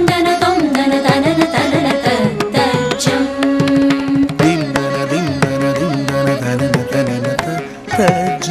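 Carnatic classical music: a melody with sliding, wavering ornaments over quick, steady drum strokes, with a brief break near the end before the next phrase.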